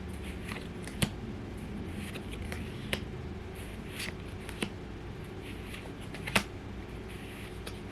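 Pokémon trading cards being handled and flicked through one by one: soft sliding and rustling with a few sharp, separate card snaps.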